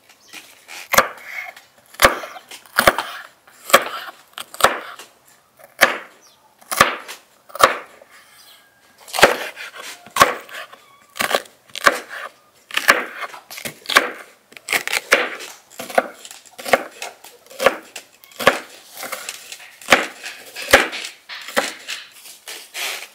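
Kitchen knife chopping a fresh bell pepper on a wooden cutting board. The blade knocks sharply on the board about once a second, with crisp crunching of the pepper flesh between the knocks.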